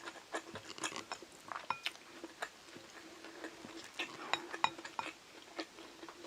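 Close-miked mouth sounds of someone chewing Korean side dishes: irregular soft crunches and wet clicks, over a faint steady hum.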